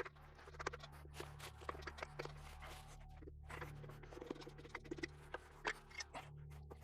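Irregular small clicks, taps and scrapes of hand tools and metal engine parts being handled, over a low steady hum.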